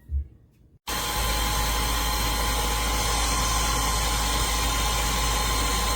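A short thump, then about a second in the 12V electric impact wrench of a STANDTALL car jack kit starts abruptly and runs with a steady, even motor whir.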